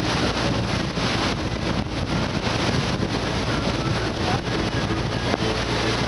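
Wind buffeting the microphone over the steady low hum of a passenger motor ship's engines, aboard the ship while it is under way.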